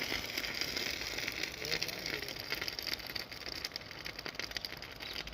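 Steady crackling, fizzing hiss full of small rapid pops, typical of a thermite rail-welding charge burning. Faint voices in the background.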